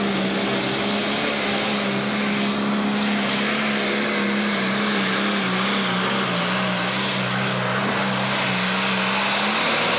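Pro Stock pulling tractor's turbocharged diesel engine running flat out under load as it drags the sled. It is a loud, steady drone over a heavy rushing noise, and the pitch sags slightly near the end as the load builds.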